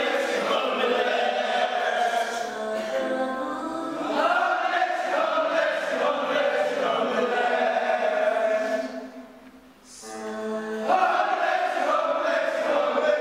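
Choir singing slow, long held chords. It fades almost away about nine and a half seconds in and comes back with a single low held note, then the full chord again.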